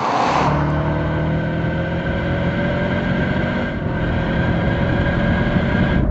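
2015 Subaru WRX STi's 2.5-litre turbocharged flat-four: the car sweeps past with a brief rush of noise, then the exhaust drones at fairly steady revs, heard close to the tailpipes.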